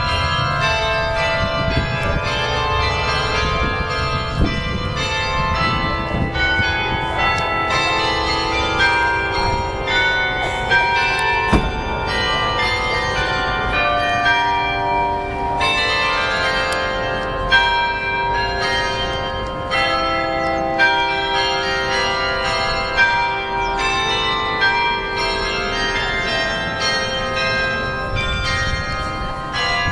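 Cathedral bells ringing continuously, many bell notes struck in quick succession and overlapping as they ring on.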